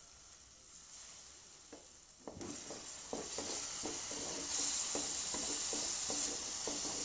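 Onions, tomatoes and freshly added ginger-garlic paste sizzling in hot oil in a metal kadai, stirred with a spatula that scrapes the pan in repeated strokes, about two or three a second. The sizzle starts suddenly about two seconds in and grows louder.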